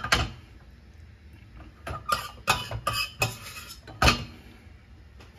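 Metal spoon clinking and scraping against steel cookware as shallot sauce is spooned into a stainless steel sauce boat: a scattered series of sharp clinks, the loudest about four seconds in.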